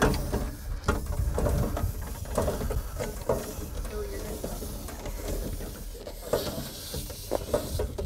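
Thick RV power cord being wound in on a hand-cranked MORryde EasyReel, with scattered light knocks and rubbing from the cord and reel over a steady low rumble.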